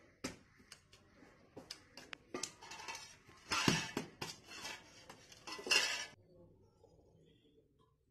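Stainless-steel plates and bowls clinking and clattering as they are handled and set down, a run of sharp knocks with two louder clatters in the middle and about six seconds in, after which it stops.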